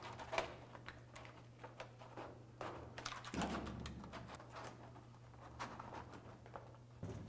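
Faint crinkling, rustling and light taps of hands working a butyl-rubber Dynamat sound-deadening sheet and its peeled paper backing up against a car's sheet-metal roof, as scattered small ticks, with a low steady hum underneath.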